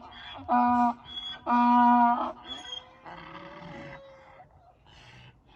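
Donkey braying: a run of hee-haws, with loud, long honking notes alternating with short, wheezy in-breath notes, that dies away about two seconds in.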